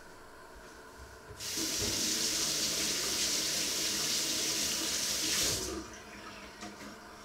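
Kitchen sink tap running in a steady stream for about four seconds, starting about a second and a half in and shut off with a few seconds left.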